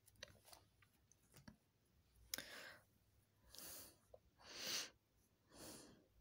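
Near silence with a person's soft breathing: four quiet breaths about a second apart in the second half, after a few faint small clicks.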